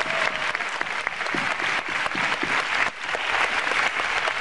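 Many people applauding: dense, steady clapping.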